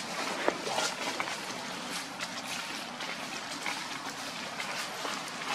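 Steady outdoor hiss with scattered light crackles and clicks, the rustle of dry leaf litter as the monkeys shift about, and one sharper click about half a second in.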